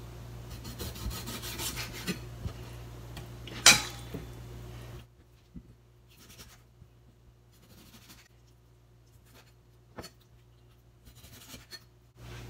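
Kitchen knife slicing chicken gizzards on a plastic cutting board: soft cuts and light knocks of the blade on the board, with one sharper knock about four seconds in. About halfway through the sound turns much fainter, leaving only scattered light taps.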